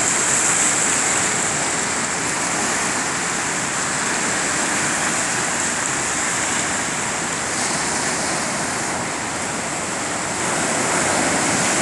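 Ocean surf breaking and washing up the beach, a steady rush of white water.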